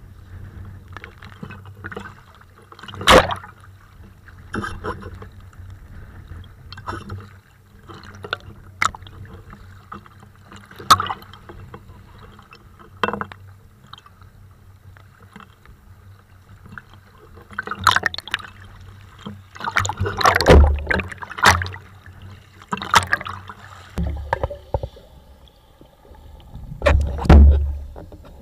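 Choppy sea waves slapping and splashing over a waterproof action camera at the surface, with a sharp splash every few seconds over a low rumble of moving water. Near the end the camera goes under and the sound turns into muffled underwater sloshing.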